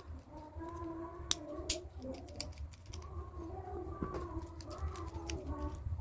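Sharp clicks and snaps of plastic toy parts being fitted together by hand, a few seconds apart. A dove coos steadily in the background.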